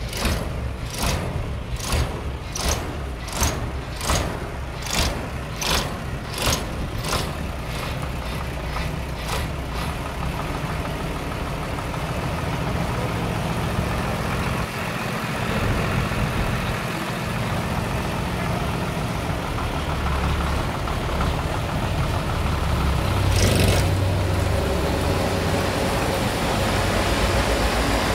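A heavy engine runs steadily. Over it, for the first ten seconds, come sharp strikes about every three-quarters of a second, fading out. A short burst of noise comes about 23 seconds in.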